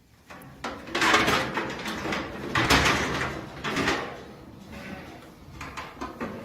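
Metal clattering and banging from a sheep and goat restraint crate, its gates and bars knocking in several bursts, the loudest about a second in and around three and four seconds in, with lighter knocks near the end.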